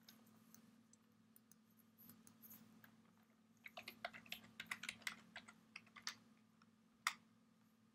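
Computer keyboard typing, quiet: a quick run of keystrokes from about three and a half to six seconds in, then one sharper click near the end, over a faint steady hum.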